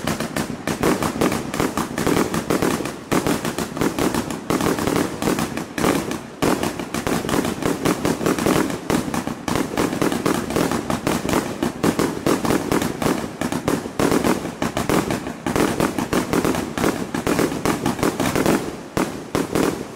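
Wizard Fireworks PC211 100-shot 1.3G firework cake firing a rapid barrage, about five shots a second: launch thumps and aerial breaks overlapping one another without a pause.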